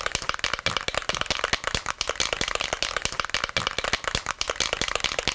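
Aerosol can of primer being shaken, its mixing ball rattling in a fast, steady run of clicks.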